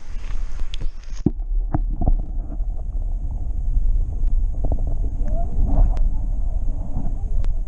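Muffled underwater rumble and knocks as an action camera's microphone goes under the creek water. The higher sounds cut off abruptly about a second in, leaving a heavy low rumble with scattered thumps.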